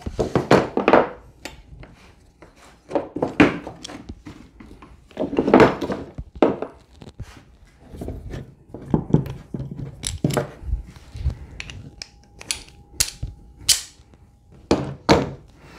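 Bar clamps being loosened and taken off a clamped plywood workpiece and jig: an irregular run of knocks and thunks of metal and wood against the workbench, with a few short, high scrapes about two-thirds of the way through.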